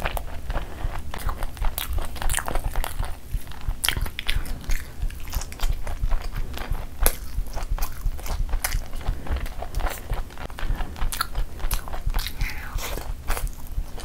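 Close-miked chewing and biting of chicken and rice eaten by hand: a dense, irregular run of wet mouth clicks, smacks and crunches.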